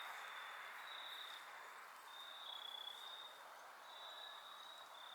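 Faint insects trilling: one high steady tone that swells and fades every second or so over a soft hiss.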